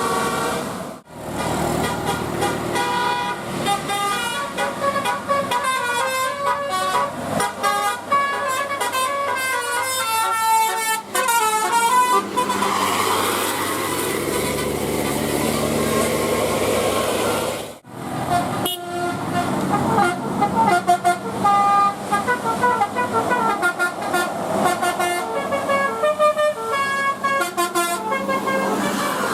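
Indonesian bus 'telolet' multi-tone horns playing quick runs of stepped notes. The sound cuts out abruptly twice, about a second in and again near eighteen seconds, before the horn tunes resume.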